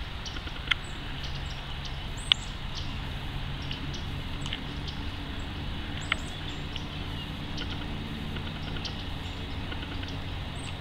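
Outdoor back-yard ambience: a steady low rumble, a bird giving short high chirps a few times, and three sharp clicks, the loudest sounds, about a second in, two seconds in and six seconds in.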